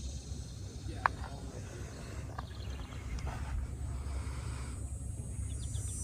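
Outdoor ambience: a steady low rumble, with one sharp click about a second in.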